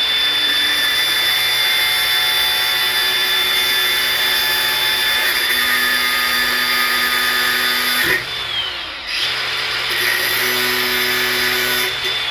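Handheld electric power tool running at speed with a steady high whine. It winds down about eight seconds in, starts up again about a second later, and winds down again at the end.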